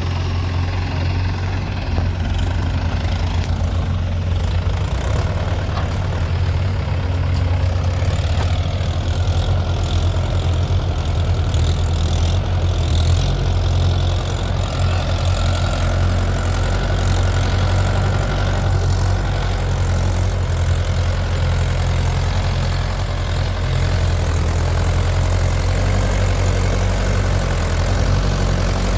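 A heavy diesel engine running steadily at a low idle, a deep even rumble.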